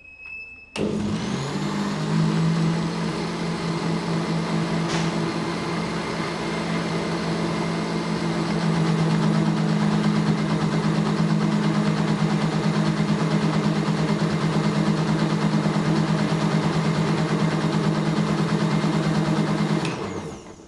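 Electric mixer grinder switched on about a second in, spinning up and then running steadily as it grinds neem leaves into juice. It gets a little louder about halfway through and switches off just before the end.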